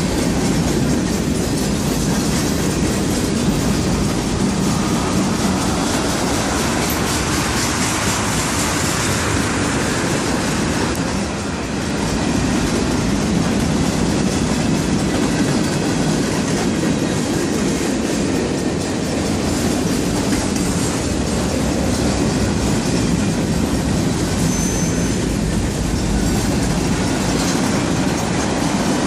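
Freight train cars rolling past close by: a steady loud rumble and rattle of steel wheels on the rails, with a brief high squeal late on.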